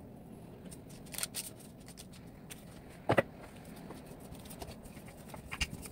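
Light rustles and taps from handling shaped bread dough on a paper-lined baking tray, with one louder knock about three seconds in.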